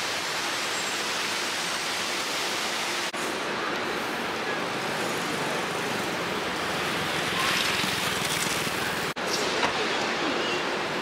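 Steady hiss of city street noise with traffic, swelling a little about seven seconds in and dropping out for an instant twice.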